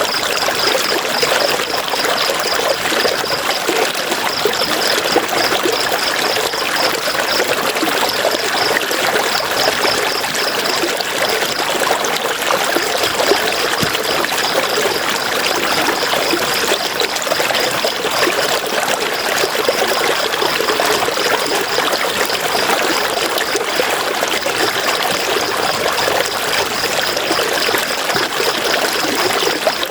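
River water flowing over stones, a steady rushing and trickling. A high, rapidly pulsing trill runs over it, stopping for a few seconds at a time.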